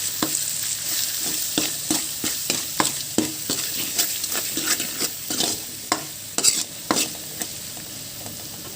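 A spoon scraping and knocking against a pan as onion-tomato masala with freshly added spice powders is stirred, over a steady sizzle of frying oil. The stirring strokes come several a second and stop about seven and a half seconds in while the sizzle goes on.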